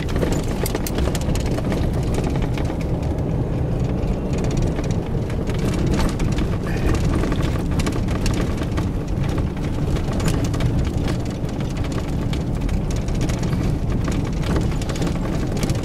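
Car cabin noise while driving slowly over badly potholed, patched asphalt: a steady low road rumble with frequent knocks and rattles as the wheels drop into and climb out of the holes.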